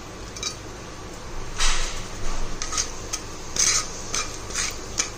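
Wooden spatula scraping and stirring spices in hot oil in a metal kadhai. There is a series of short scrapes, about one every half second, starting about a second and a half in.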